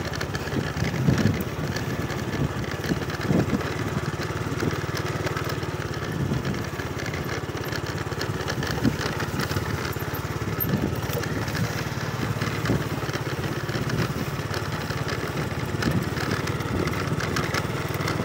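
Motorcycle engine running steadily at low speed while riding a bumpy dirt track, with a few low thumps from the bumps.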